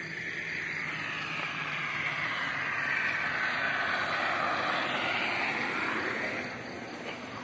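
A vehicle passing at speed on a toll road, its tyre and engine noise swelling to a peak about halfway through, then fading with a slowly falling pitch.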